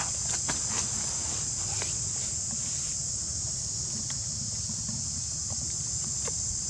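A steady, high-pitched drone of a chorus of insects, with scattered faint clicks and rustles, most of them in the first two seconds.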